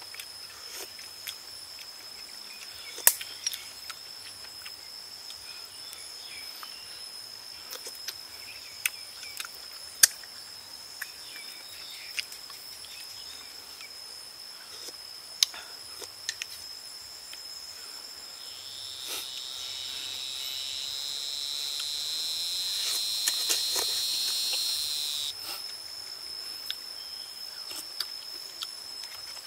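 A steady high-pitched insect drone, with sharp clicks of a metal spoon against a bowl. About two-thirds of the way in, a louder insect buzz swells for several seconds and then cuts off suddenly.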